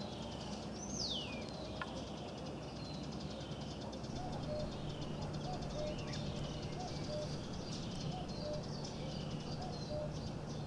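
Wild birds chirping and calling, with quick falling chirps and one long falling whistle about a second in. From about four seconds in, a low short note repeats about twice a second over a steady low hum.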